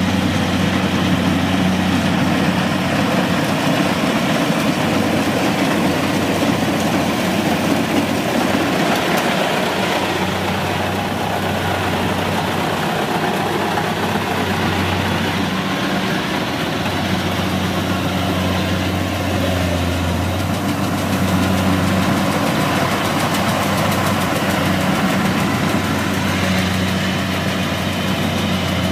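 Kubota DC-70 combine harvester running steadily while it cuts and threshes rice: a constant diesel engine drone with a steady low hum and machinery noise over it.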